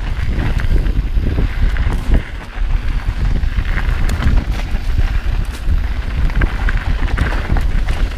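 Wind buffeting an action camera's microphone during a fast mountain-bike descent on dirt singletrack, a steady low rumble, with the tyres on the dirt and scattered small clicks and rattles from the bike on the rough trail.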